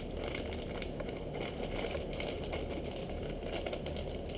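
Plastic bait packaging crinkling and rustling as it is handled, in short irregular crackles over a steady low hum.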